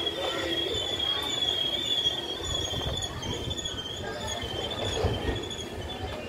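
Indian Railways passenger coaches rolling along the platform track with a rumble, under a high, wavering metallic squeal from the wheels and brakes, typical of a train slowing on arrival.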